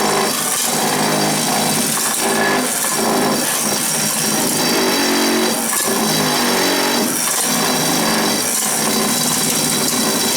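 Power vibrator running steadily against dry refractory, packing the furnace lining. The buzz is rough and continuous, and its pitch wavers.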